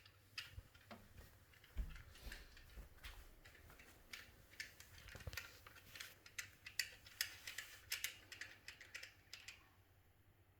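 Faint, irregular small clicks and rattles of hands working a speaker wire into a speaker's wire terminal; the clicking thins out near the end.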